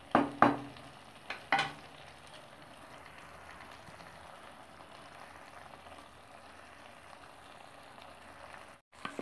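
Cabbage wedges in a thick spiced gravy simmering in a pan: a faint, steady sizzle and bubble. A few short clicks in the first second and a half.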